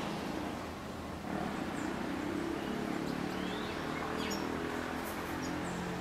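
A few short, high bird chirps, one of them a quick rising call, over a steady low drone like a distant engine.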